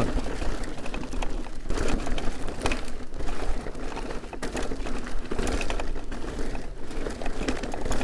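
Gas Gas ECC electric mountain bike with a Brose S-Mag motor rolling downhill over a rough dirt trail: tyre noise on the dirt with a steady run of small rattles and knocks from the bike over the bumps.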